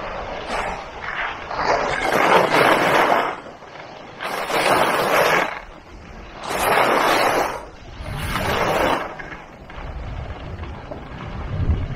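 Skis scraping across packed snow on each turn: four loud swishes about two seconds apart. Wind buffets the microphone near the end.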